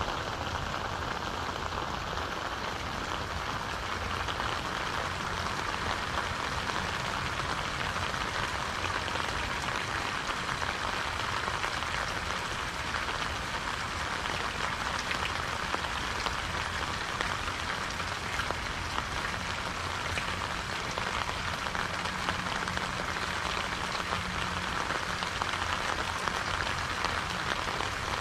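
Steady rain falling, an even hiss dotted with many small drop impacts, holding constant throughout.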